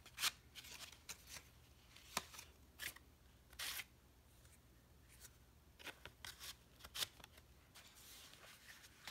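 Faint rustling of cardstock tags sliding in and out of paper pockets, with scattered short scrapes and taps as the paper is handled.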